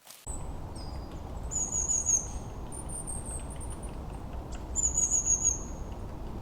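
Outdoor ambience: birds chirping over a steady low background rumble, with two loud, high, rapid trills, one about one and a half seconds in and one near five seconds in. It starts abruptly about a quarter second in.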